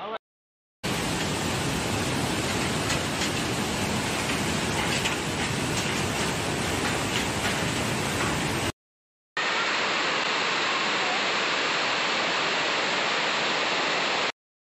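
Floodwater rushing in a fast brown torrent, a steady dense noise that cuts off about nine seconds in. After a brief gap, heavy rain pours down just as steadily.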